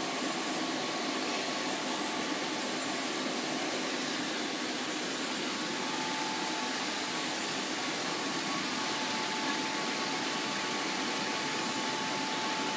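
Steady rushing hiss of a reef aquarium's water circulation and pumps, with a faint steady whine.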